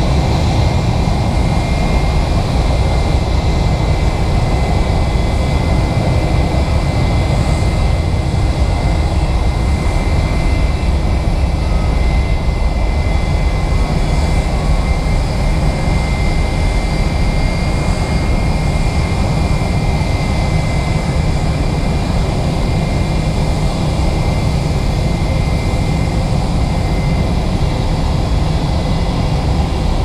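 Jet airliner engines running steadily, a constant low rumble with a thin high whine over it.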